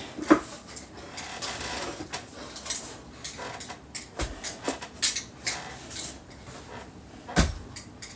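Scattered light clicks and knocks of objects being handled and set down, with one louder thump about seven seconds in.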